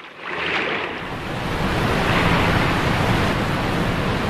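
Steady rushing noise of waves, swelling up within the first second and then holding loud.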